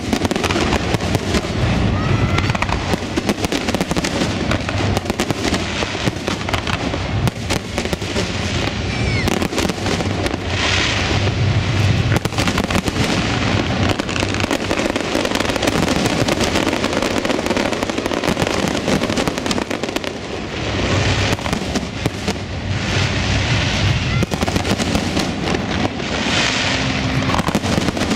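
Fireworks display: aerial shells bursting in a dense, continuous barrage of bangs and crackling, with louder stretches of hissing crackle several times.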